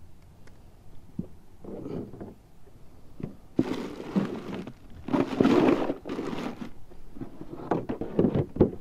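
Handling of a white foam fish cooler: two bursts of rustling as a speckled trout goes into it, then a few short knocks as the foam lid is fitted back on near the end.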